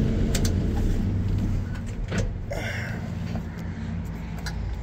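Slant Six engine of a 1979 Dodge D100 idling steadily, ticking away like a sewing machine. A few light clicks sound over it.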